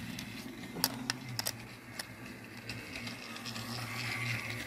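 Battery-powered Thomas TrackMaster toy engine running along plastic track: a steady motor hum that grows louder about four seconds in as it passes close. A few small plastic clicks in the first two seconds.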